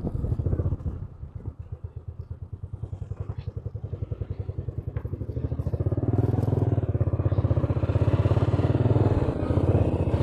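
Motorcycle engine running with a fast, even pulse. It drops back soon after the start, then picks up and runs louder from about six seconds in.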